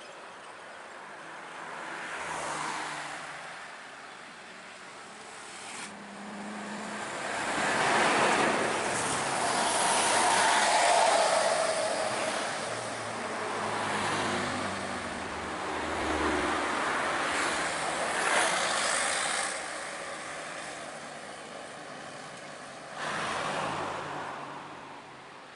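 Road traffic: buses, trucks and motorbikes passing, engine and tyre noise swelling and fading as each goes by, with a falling engine whine about ten seconds in.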